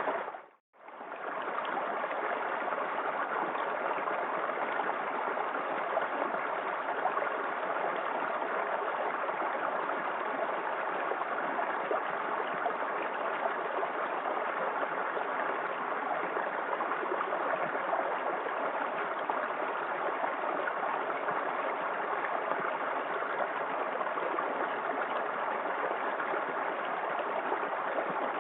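Small waterfall in a forest creek, water rushing steadily. It cuts out briefly about half a second in, then fades straight back.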